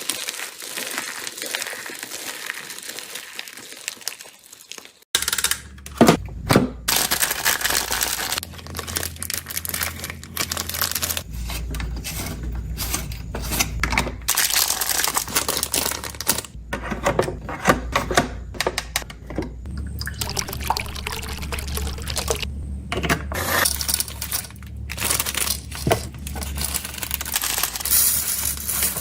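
Slime being squished and pressed by hand, with a dense run of sticky clicks, crackles and small pops. The sound changes about five seconds in, from a soft hiss to the sharper crackling.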